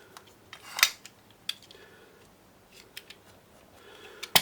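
Blade trimming off the excess of a new paper gasket where it sticks out of the crankcase joint: a few short scraping cuts and clicks, the loudest about a second in, with two sharp clicks near the end.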